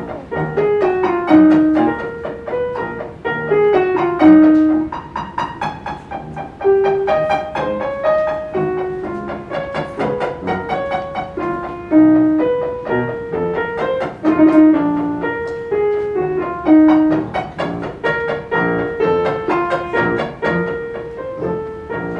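Two pianos playing a slow classical aria melody over short, detached repeated notes, one piano's strings muted with a blanket and weights to imitate string pizzicato.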